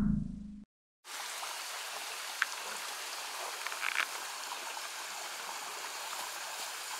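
A deep sound effect fades and cuts off just after the start, with a short silence. Then a steady outdoor night hiss of ambient noise runs on, with a couple of faint clicks.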